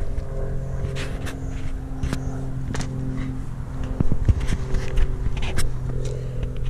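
A steady low motor hum, like a vehicle engine idling, runs under scattered clicks, scrapes and knocks from a German Shepherd nosing and pawing in dry dirt and mouthing a hand. The loudest knocks come about four seconds in.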